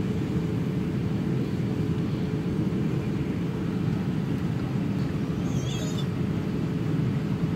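Steady airliner cabin noise in flight: a constant low rumble of engines and airflow. A brief high chirp sounds about five and a half seconds in.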